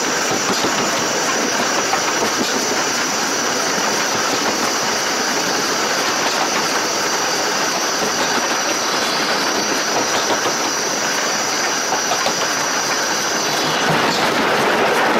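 Steam locomotive running along the line, heard right beside its driving wheels and rods: steady rail noise and the clatter of the running gear, with a steady high-pitched hiss that stops near the end.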